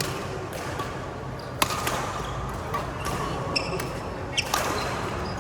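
Badminton rally: several sharp racket-on-shuttlecock hits, the loudest about one and a half seconds in, with a few brief squeaks of shoes on the court floor.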